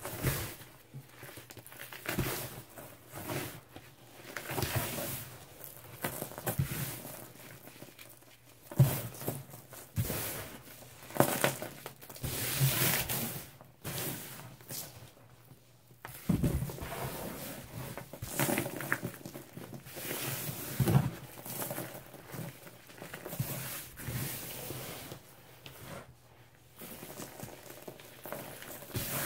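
Hands crushing and crumbling a dried slab of lemon-scented cleaning powder (Comet, baking soda, oxygen cleaner and chalk): soft, crisp crunches and sandy hissing of powder sifting through the fingers, coming in uneven bursts.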